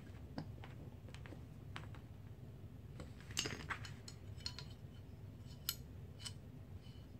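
Faint, scattered metallic clicks and clinks from hands working an AR-15 lower receiver and its newly fitted ambidextrous safety lever. The loudest click comes about three and a half seconds in, with another sharp one near six seconds.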